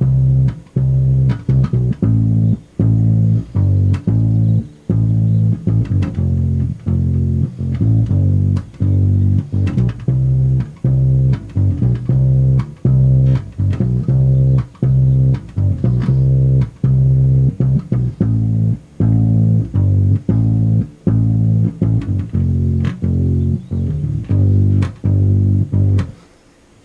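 Stagg 3/4 electric upright bass played pizzicato: a steady run of plucked low notes, about two to three a second, that stops about a second before the end.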